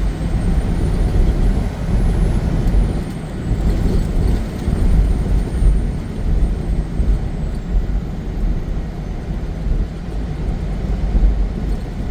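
Semi truck's engine and road noise heard from inside the cab: a steady low rumble.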